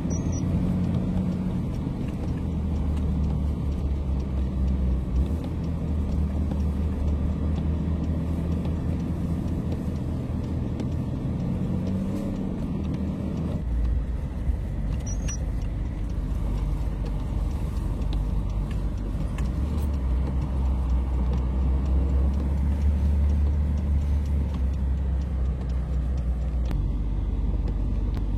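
Steady low rumble of a truck's engine and road noise heard inside the cab, with a shift in the engine's low drone about halfway through.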